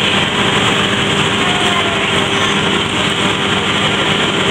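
Fairground kiddie ride running: a steady mechanical din with a constant low hum.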